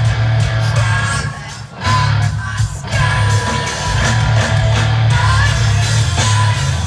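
Rock band playing live: heavy bass, drums and guitar, with a short drop in the music just before two seconds in.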